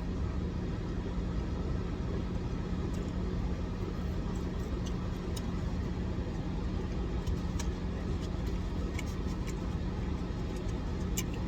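Steady low hum of an idling car engine, with a few faint short clicks and taps over it.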